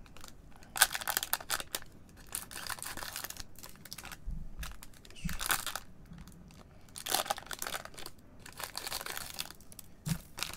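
Foil trading-card pack wrappers crinkling and rustling as gloved hands pick up and handle the opened packs, in a series of irregular bursts.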